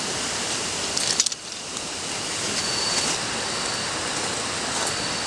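Gopchang (grilled intestines) sizzling on a hot grill: a steady hiss with scattered crackles and pops, briefly dropping away about a second in.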